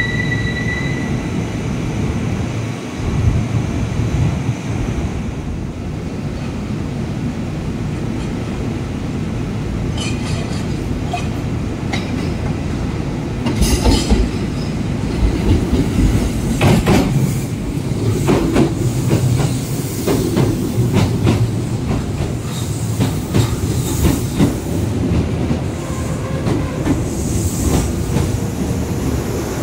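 Kintetsu electric commuter train arriving slowly over the station pointwork. A high wheel squeal fades about a second in, then a steady rumble with wheels clacking over rail joints and points, the clacks coming thickest from about halfway through as the cars draw alongside.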